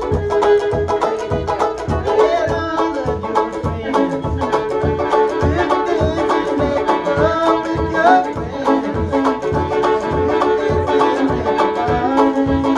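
Live fiddle and banjo duet: the fiddle bows the melody over fast banjo picking, with a steady low beat about three times a second.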